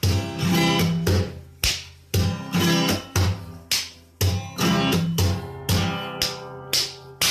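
Background music of strummed guitar chords, about two strums a second in a steady rhythm.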